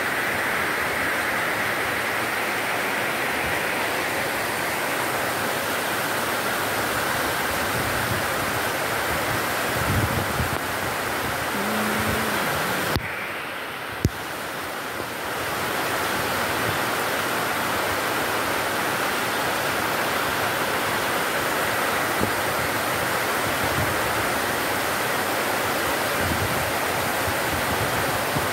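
Torrential tropical rain pouring down, a steady dense hiss. About halfway through it goes duller for a couple of seconds, with a couple of small clicks.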